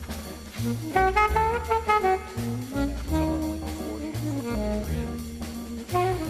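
Background music: a jazz-style track with a horn melody over a bass line and a steady beat.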